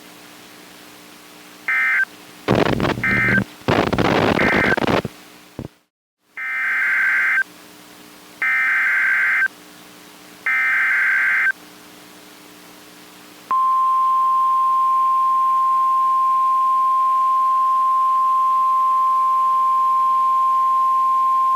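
Emergency Alert System / NOAA Weather Radio SAME digital data bursts: a few short screechy bursts with static crackle, then three one-second header bursts about two seconds apart, marking the end of one warning and the header of the next. They are followed by the single steady Weather Radio 1050 Hz warning alarm tone, held without change.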